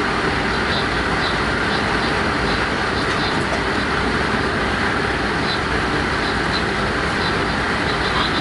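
Class 186 electric locomotive (a Bombardier TRAXX) running along the line: a steady rolling noise of wheels on rails, with faint light ticks now and then.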